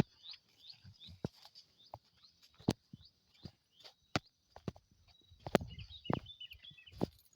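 Footsteps crunching and knocking irregularly through farm ground and vegetation, over steady high chirping from the surroundings, with a short warbling bird call about six seconds in.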